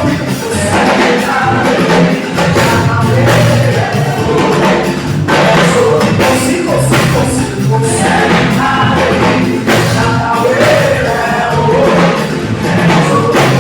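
A live band playing with singing over it, drums keeping a steady beat.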